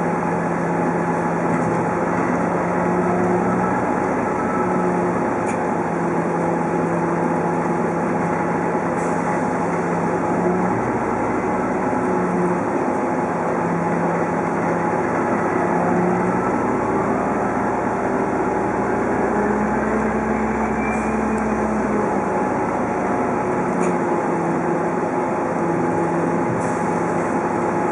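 Cabin sound of an Orion VII hybrid-electric city bus under way: a steady drivetrain hum, with thin whines that glide up in pitch through the middle.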